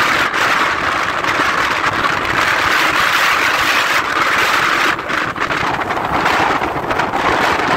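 Strong wind of about 70 km/h blowing in gusts, a loud, steady hiss of rushing air with wind noise on the microphone, easing briefly about five seconds in.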